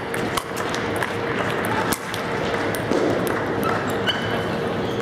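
Table tennis ball clicking off sandpaper-faced paddles and the table during a rally, with a low murmur of voices behind.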